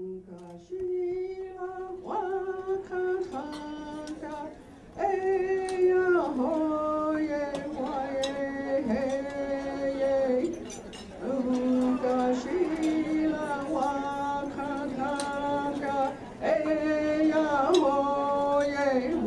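Music of a woman's voice singing a slow melody in long held notes that step and glide from one pitch to the next.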